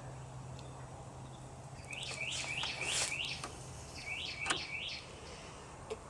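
A bird chirping in two quick runs of short rising notes, with a few faint sharp clicks in between.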